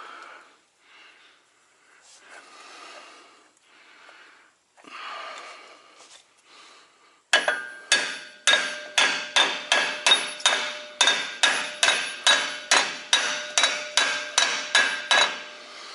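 Hammer blows on metal in a steady run of about two to three strikes a second, each ringing briefly, starting about seven seconds in: new brake bushings being knocked into a semi truck's front brake without a proper bushing driver. Before that there is only faint handling noise.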